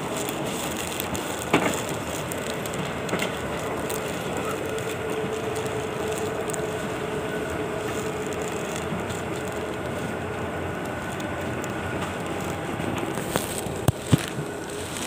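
Wheeled suitcases rolling over a hard floor amid shuffling footsteps, over a steady hum. A sharp knock about a second and a half in and two more close together near the end.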